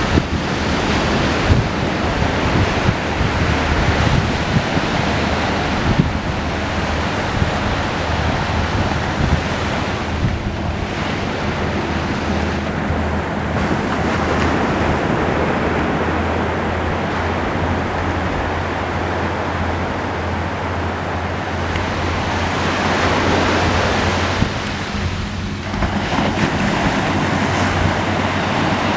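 Ocean surf: a continuous wash of waves, swelling and easing every few seconds, with wind buffeting the microphone.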